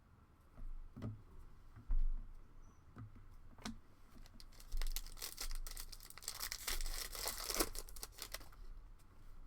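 A trading card pack wrapper being torn open with crinkling, after a few light knocks of cards and packaging being handled. The tearing and crinkling build up about halfway in and stop a second or so before the end.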